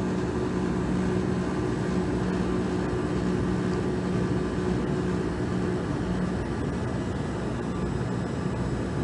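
Steady machinery drone with a low, even hum.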